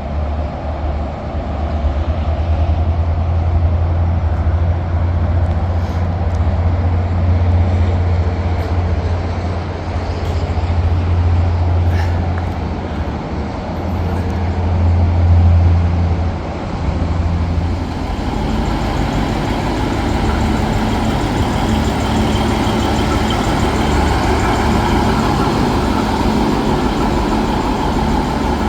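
Heavy diesel engine running steadily with a deep, even drone; about 18 s in the drone eases and a broader, brighter running noise takes over.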